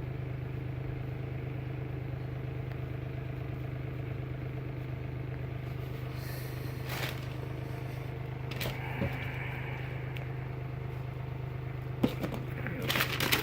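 A steady low hum, like a motor running, continues throughout, with a few short clicks and knocks of handling now and then.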